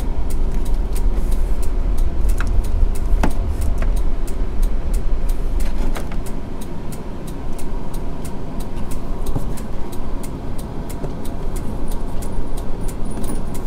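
Rapid, evenly repeated clicking from the motorhome's turn-signal flasher, switched on to power the left turn-signal camera for testing, with rustling of the dash wiring harness as it is handled. A steady low rumble underneath weakens about six seconds in.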